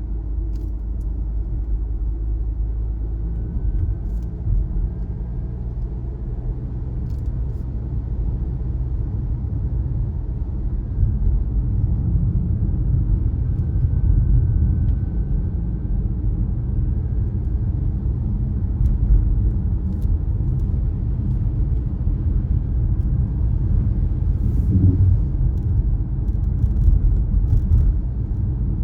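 Car driving: a steady low rumble of engine and tyres on the road, with a few faint scattered ticks.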